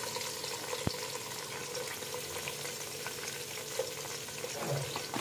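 Sliced onions sizzling as they fry in hot ghee, a steady crackling, with a single click about a second in.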